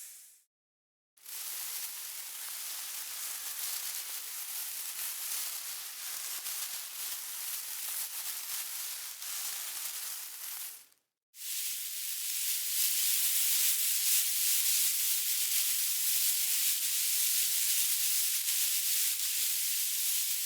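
Snake hissing in two long stretches: the first, starting about a second in, is lower and uneven. After a brief break about eleven seconds in, the second is higher and steadier.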